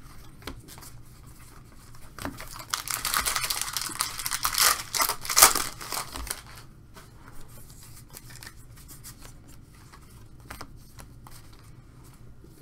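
Foil trading-card pack wrapper being torn open and crinkled for about three seconds, loud and crackly. Then quieter rustling and light clicks as the cards are handled.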